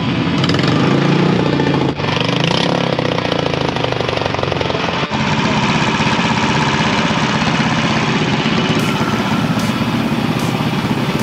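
Racing lawnmowers' motorcycle-derived engines running and idling, heard in several short clips cut together, so the engine note changes abruptly about two and five seconds in.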